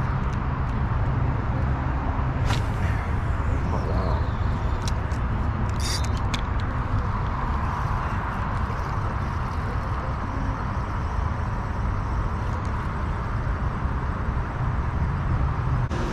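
Steady rumble of road traffic, with a few sharp clicks over it, a cluster of them about six seconds in.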